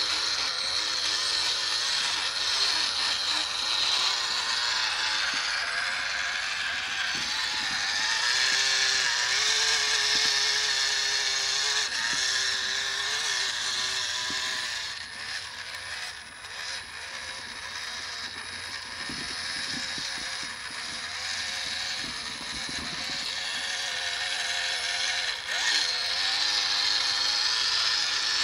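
Electric motor and gearbox of a WPL B36 Ural 4320 6x6 RC truck whining as it drives, the pitch wavering up and down with the throttle. It runs quieter for a few seconds around the middle.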